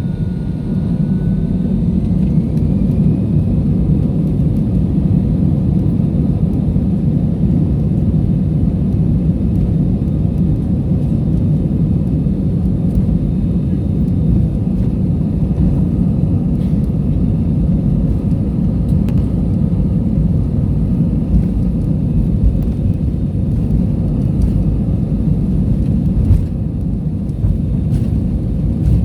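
Airliner cabin noise: a loud, steady low rumble of the engines and rushing air heard from inside the passenger cabin.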